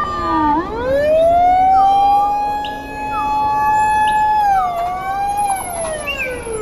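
Fire engine siren wailing. The pitch sweeps up about half a second in, holds steady for a few seconds, dips, then falls away near the end.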